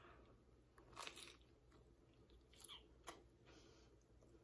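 Faint chewing of a mouthful of chicken taco with coleslaw, with a few soft crunches about a second in and again around three seconds.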